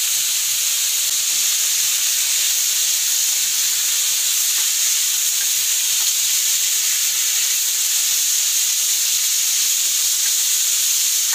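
Cubed pork with garlic and onion sizzling steadily in a hot non-stick wok as it is sautéed, with a few light scrapes of a wooden spatula stirring it.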